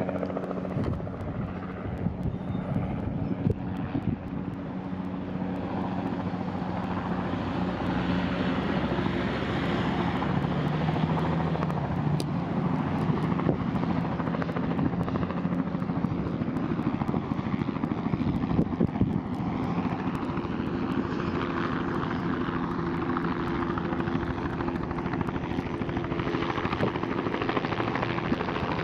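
Helicopter running: a steady drone of rotor and engine noise with a low hum that holds its pitch throughout.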